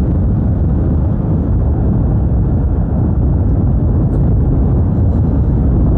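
Motorcycle on the move: a steady low rumble of engine and road noise.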